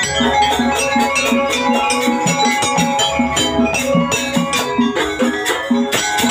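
Jaranan ensemble music playing a steady, driving rhythm, with drums and ringing tuned metal percussion.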